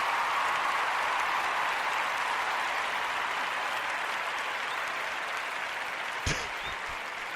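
Applause from a crowd, steady at first and slowly fading, with one short knock about six seconds in.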